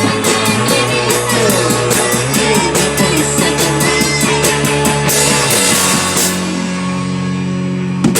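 Rock band playing live, with drum kit and guitars. The drumming stops about five and a half seconds in and a chord rings on, with one last hit near the end, as the song finishes.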